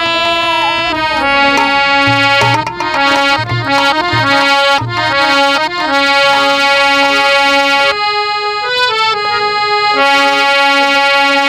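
Instrumental music led by a free-reed keyboard instrument playing a melody of held notes, with a few low drum thumps in the first half.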